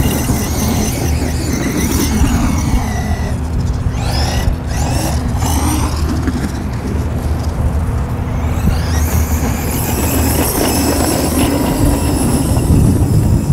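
Traxxas E-Revo 2.0 RC monster truck's brushless electric motor and drivetrain whining, the pitch rising and falling as it accelerates and lets off on sand, over a steady low rumble.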